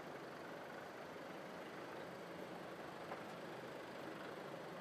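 Jaguar E-Pace engine running steadily at low speed, with a faint click about three seconds in.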